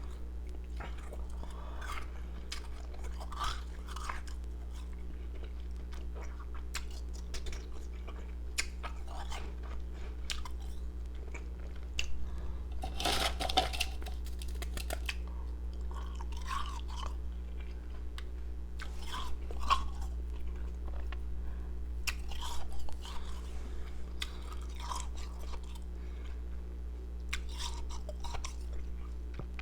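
Close-miked chewing and crunching of powdery, carbonated ice pieces, in irregular crunches with a louder burst of crunching about 13 seconds in. A steady low hum runs underneath.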